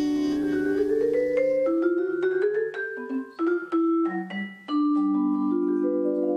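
Vibraphone played solo, struck notes ringing on: a quick rising run in the first two seconds, scattered single notes, then several notes held together into a sustained chord near the end.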